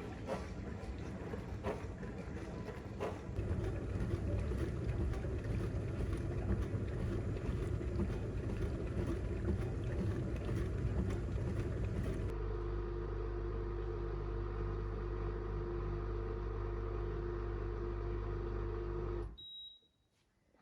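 Dishwasher running: a loud rushing, spraying noise with a few clicks, then a steady motor hum with a fixed pitch. It cuts off suddenly about 19 seconds in, followed by a brief high beep.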